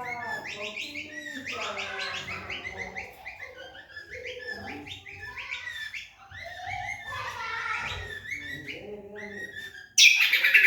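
Kecial kombok songbirds singing against each other: rapid, high chirping phrases overlapping, with lower warbling notes underneath. A sudden loud noise cuts in near the end.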